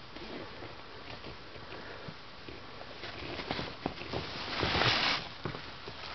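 Rustling of a fabric cover brushing close against the camera, with scattered light knocks and clicks from handling. There is a louder rustle about five seconds in.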